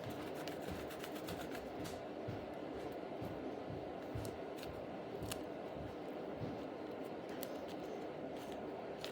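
Slime being squeezed and stretched in the hands, giving scattered small clicks and crackles over a steady background hum.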